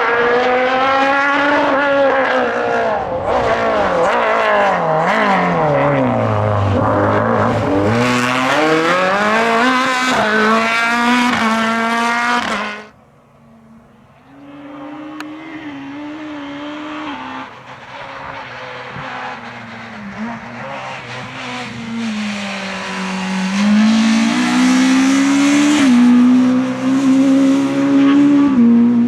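Naturally aspirated Group F2000 rally car engines at full attack. The first car's engine note drops under braking and then climbs hard through several quick upshifts, until the sound cuts off abruptly about 13 seconds in. A second car's engine follows, quieter at first and growing louder as it approaches.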